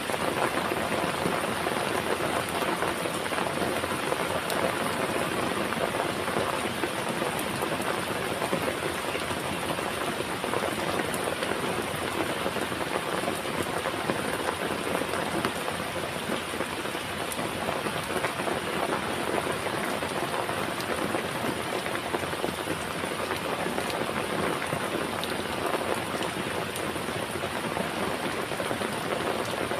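Heavy rain falling steadily, with dense raindrop patter on a surface.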